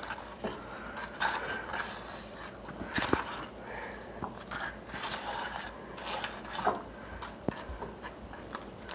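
A stick of butter rubbed around a heated pan, making irregular scraping and rubbing strokes.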